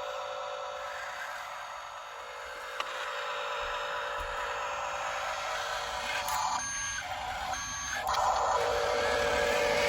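Reversing beeper of a radio-controlled construction vehicle: two short beeps about a second apart in the second half, over a steady mechanical drone.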